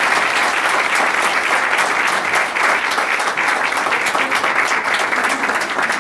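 An audience applauding, a dense, steady clapping at a constant loud level.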